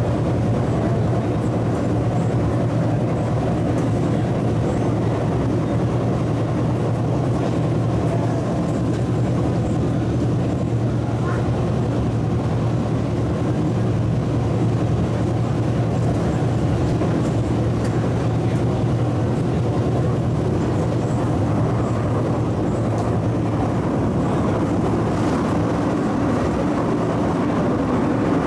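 Steady running noise inside an MTR East Rail MLR (Metro-Cammell) electric multiple unit at speed: a continuous low traction-motor hum over wheel-on-rail rumble.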